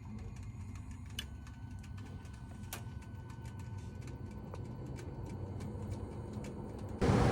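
Low steady hum from a Lennox SL280 furnace with faint ticking and two light clicks, about one and three seconds in. Near the end a loud, even rushing noise starts suddenly.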